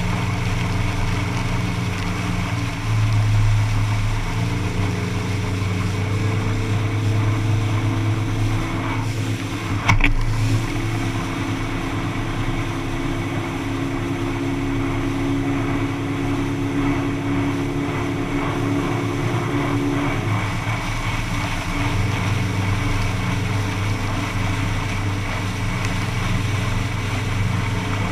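Motorboat engine running under way, with water rushing along the hull. The engine note shifts in pitch a few times, and there is one sharp knock about ten seconds in.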